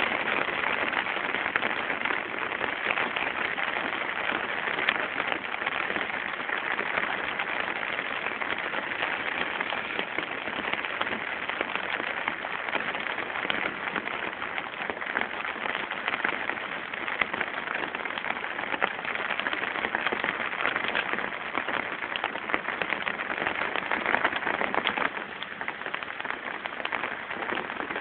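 Heavy rain pouring down in a steady downpour, easing slightly near the end.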